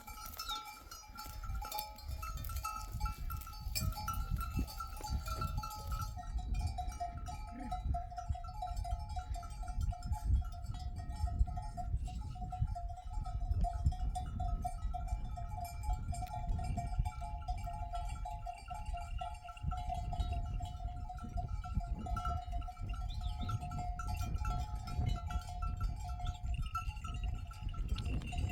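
Bells on a grazing flock of sheep ringing steadily, with a rumble of wind on the microphone underneath.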